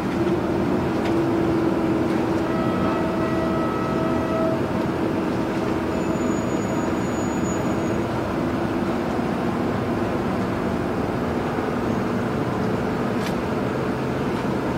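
Steady low engine rumble from the passing vessels, mixed with wash noise. A faint held tone sounds for about two seconds a few seconds in, and a thin high whine follows briefly in the middle.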